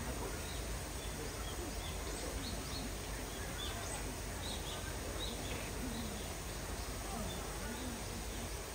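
Outdoor ambience: a steady low background hum with small birds chirping briefly now and then, and faint voices in the distance.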